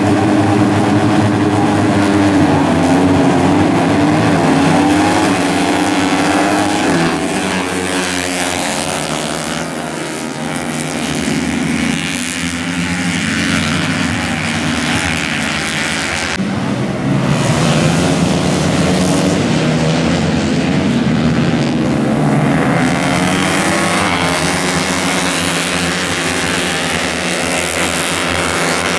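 A pack of 150 cc four-stroke sport motorcycles racing, many engines revving hard at once, their pitches rising and falling as the riders work through the gears.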